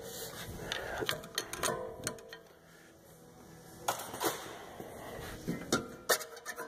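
Metal clanks, knocks and scraping from a rear brake caliper being worked loose by hand off the rotor and bracket. The irregular clicks come in clusters, the busiest in the first couple of seconds, then again about four seconds in and near the end.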